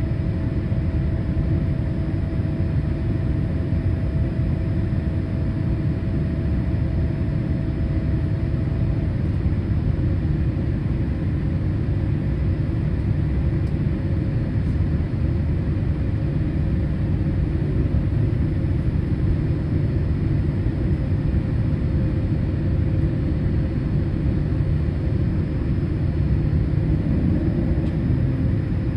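Steady cabin noise of a Boeing 787-8 airliner in flight: a dense, even rumble of engines and airflow, with a faint engine whine that steps slightly lower in pitch about a third of the way through.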